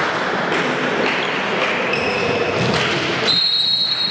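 Spectator and player noise in a sports hall, then about three seconds in a referee's whistle blows one long, steady blast.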